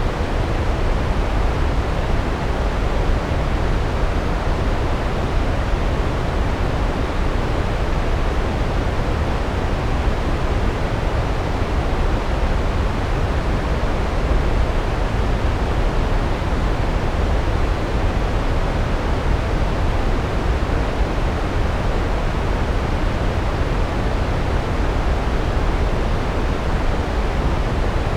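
Large waterfall: a steady, unbroken rush of falling water, heaviest in the deep low end.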